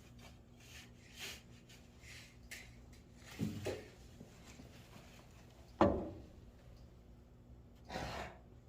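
Stall being mucked out: a handful of separate scraping and rubbing strokes, with a sharp knock about six seconds in that is the loudest sound.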